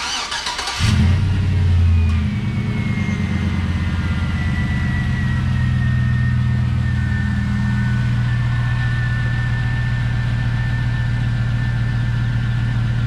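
2005 GMC Sierra pickup's engine cranked by the starter, catching in under a second, flaring up in revs and settling to a steady idle. A faint high whine drops slightly in pitch as the revs come down.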